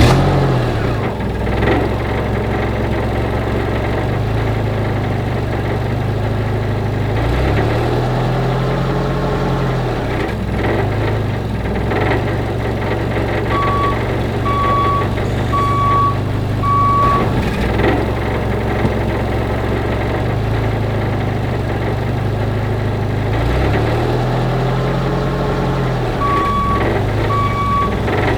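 Truck engine running steadily, its pitch rising and falling twice, with a reversing beeper sounding a row of four even beeps about halfway through and starting again near the end.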